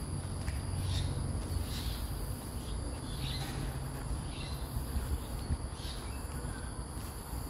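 Insects droning steadily at a high pitch, with soft footsteps about once a second and a low rumble underneath.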